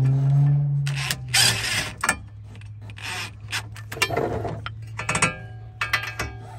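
A ratchet and deep socket spinning the nut off the ball stud of a car's outer tie rod end, heard as short bursts of rapid ratchet clicking and rasping metal with sharp clinks of the socket on the nut. The nut is already broken loose. A steady low hum runs underneath, loudest in the first second.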